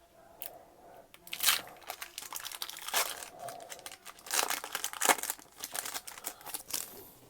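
Foil Pokémon booster pack wrappers crinkling and tearing as packs are handled and opened, in irregular rustles, the loudest about a second and a half in, at three seconds, and around four and a half to five seconds.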